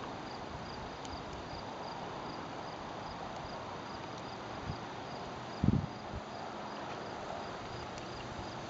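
Crickets chirping in a steady rhythm, a few chirps a second, over a low hiss. A single low thump about five and a half seconds in.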